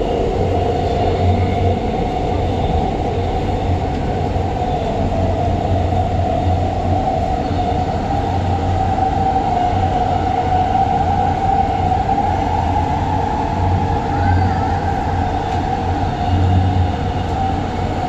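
Shinbundang Line subway train running, heard from inside a passenger car: a steady rumble and rushing noise with a constant high whine.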